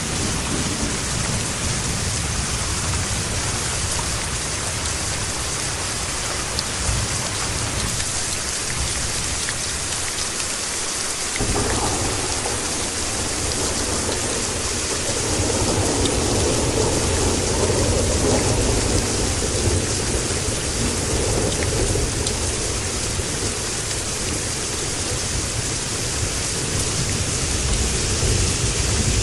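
Steady heavy rain, an even hiss of drops, over a low rolling rumble of thunder. A louder rumble swells up a little before halfway through and dies away over about ten seconds.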